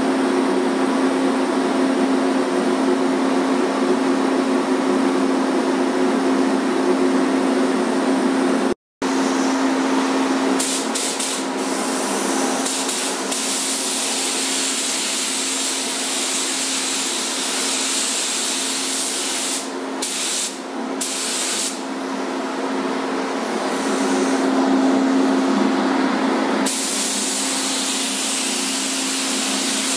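Compressed-air paint spray gun hissing as it sprays the trim, the spray stopping and starting several times, over a steady low hum.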